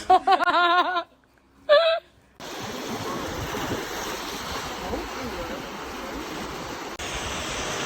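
Ocean surf: a steady rushing wash of waves that comes in abruptly about two and a half seconds in, after a brief wavering voice at the start.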